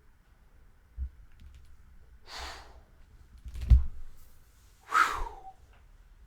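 A few thumps and rustling knocks, the heaviest about halfway through, with breathy bursts, the last one ending in a short falling grunt.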